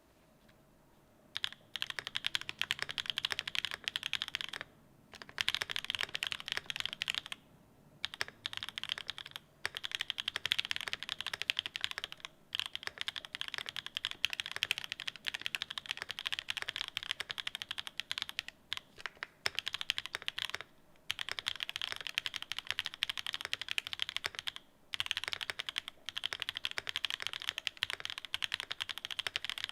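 Steady typing on a mechanical keyboard fitted with Cherry Blossom linear switches and Cherry-profile keycaps. Fast runs of keystrokes start about a second and a half in and are broken by several short pauses.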